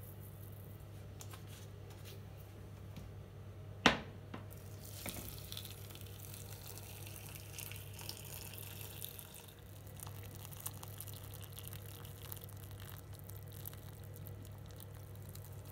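Hot water poured into a stainless steel pot of broccoli florets, splashing over them, over a steady low hum. A single sharp knock about four seconds in, just before the pouring starts.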